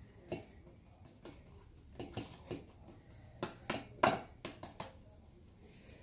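A plastic takeaway container knocking and scraping against a stainless steel dog bowl as food is tipped and shaken out, a series of short clicks and knocks, the loudest about four seconds in.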